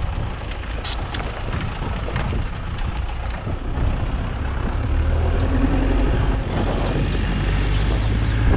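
Mahindra Thar being driven, its engine running with a steady low rumble over wind and tyre noise; the engine gets louder about halfway through as the jeep picks up speed.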